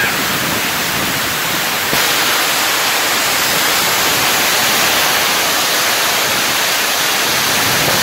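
Heavy rainstorm: a loud, steady, dense hiss of pouring rain, growing slightly louder about two seconds in.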